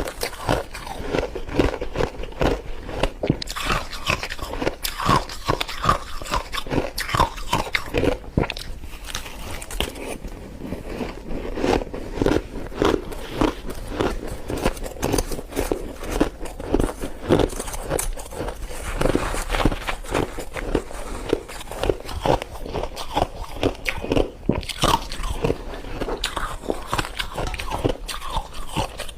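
A person biting and chewing mouthfuls of white freezer frost, with rapid close-up crunching in quick runs of many crunches a second.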